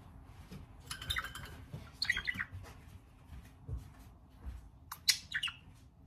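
Budgerigar chirping in short bursts: a cluster about a second in, another around two seconds in, and the loudest a little after five seconds in.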